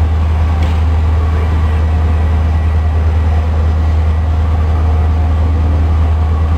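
Pakistan Railways passenger coaches rolling slowly past the platform: a loud, steady, deep rumble.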